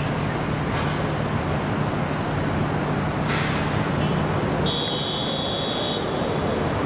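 Steady road traffic on a city avenue: car engines running and tyre noise. About five seconds in, a car horn sounds for about a second.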